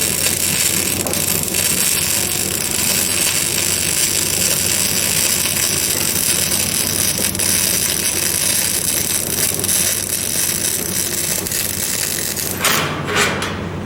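Electric arc welding: a steady crackling hiss from the arc. Near the end it breaks into two short louder bursts and the hiss cuts off as the arc stops.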